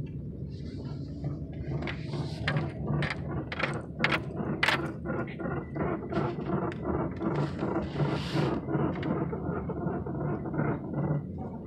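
The front end of a 2001 Chevrolet Impala making irregular clicks, knocks and scraping creaks while turning left, over a steady low hum. The noise has an unknown cause.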